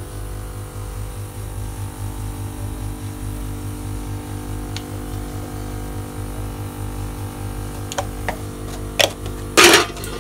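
Steady low hum with a faint pulsing, from an unseen source in a small kitchen. Near the end come a few sharp clicks and then a loud metal clatter as a steel pot or lid is handled.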